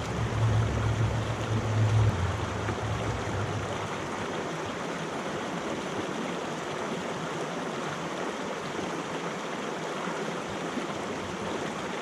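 Small mountain creek flowing, a steady rush of water, with a low rumble during the first few seconds that then dies away.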